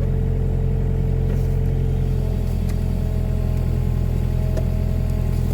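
Mini excavator's engine running steadily with a deep, even drone, and a thin steady whine joins about two seconds in.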